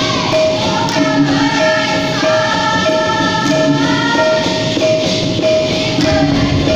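Dikir barat performance: sung melody from a lead singer and group over instrumental accompaniment, with a steady repeating beat.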